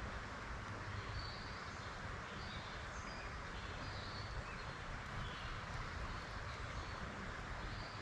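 Steady creekside background of running water, with faint short bird chirps now and then.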